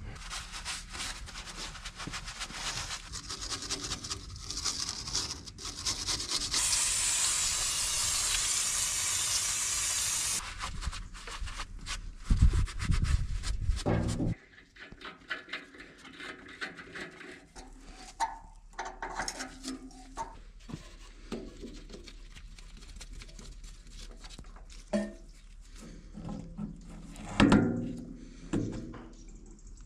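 Aerosol brake cleaner sprayed onto an oily engine casing in one steady hiss of about four seconds, followed by a gloved hand wiping and rubbing the casing with a rag. A loud low rumble comes a few seconds after the spray, and a few knocks come near the end.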